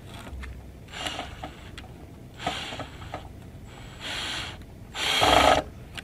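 Cordless drill running in four short bursts, driving fasteners into wooden framing. The last burst is the loudest and longest.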